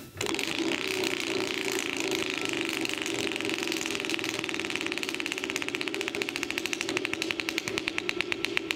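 Prize wheel spinning, its pointer clicking against the pegs around the rim: a fast, even rattle that gradually slows into separate clicks, several a second, near the end as the wheel loses speed.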